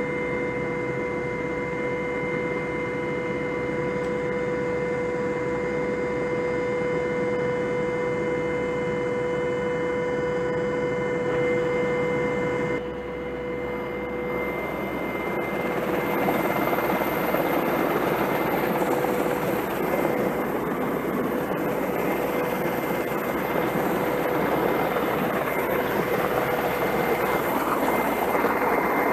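Rescue helicopter heard from inside its cabin with the side door open: a steady turbine whine over the rushing noise of rotor and wind. A little past the halfway point the level dips briefly, then the rushing noise grows louder and the whine fades under it.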